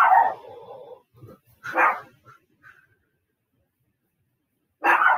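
A dog barking three times, each bark short and sharp, spaced roughly two to three seconds apart.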